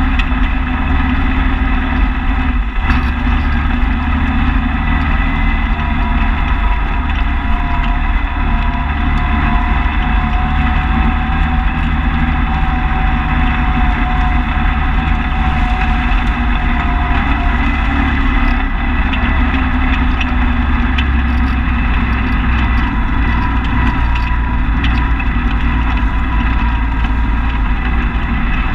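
Engine of a small off-road vehicle running steadily while it drives slowly along a bumpy dirt track, its note rising a little and falling back through the middle.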